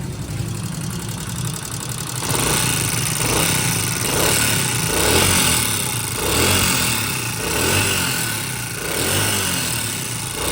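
Honda CD70's small single-cylinder four-stroke engine running with loud tappet clatter: the sign of valve tappets that are out of adjustment. The engine's level swells and eases several times.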